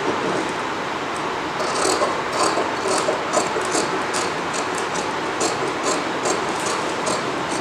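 Tailor's scissors cutting through folded blouse fabric along a chalk line, with repeated crisp snips about three a second starting about a second and a half in, over a steady background hiss.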